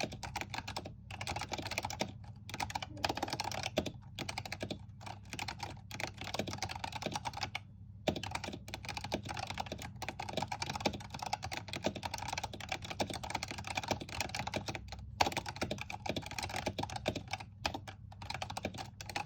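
Typing on a stock Razer Huntsman Tournament Edition keyboard with linear optical switches and HyperX pudding keycaps: a fast run of key clacks, broken now and then by short pauses.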